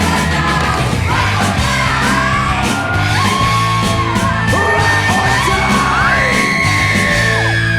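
Rock music with a yelled, sung vocal over bass guitar and drums.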